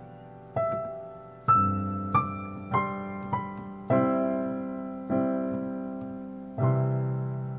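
Background music: a slow, gentle piano piece, with single notes and chords struck about once a second and each left to ring and fade.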